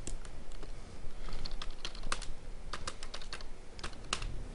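Typing on a computer keyboard: a dozen or so irregular keystroke clicks, with a quick run of them in the middle.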